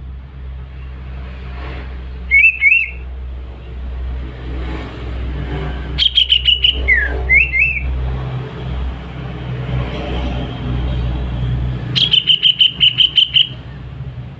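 Green leafbird (cucak ijo) singing in three short bursts of whistled, gliding notes, the last a rapid run of about ten repeated notes near the end, over a steady low rumble.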